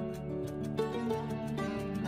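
Background music: gentle instrumental music with sustained notes and a light plucked-string feel.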